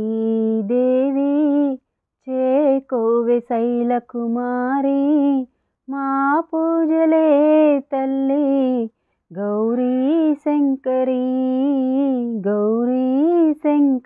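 A woman singing a Telugu devotional lullaby for the deities' bedtime, one voice with no accompaniment, in short held phrases broken by brief pauses.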